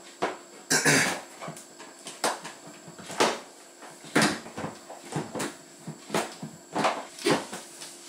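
A new heater-and-pump unit for a Bosch dishwasher, made of plastic, being pushed and twisted into the sump housing. There is a series of irregular sharp knocks and clicks of plastic on plastic, with a longer scrape just before a second in.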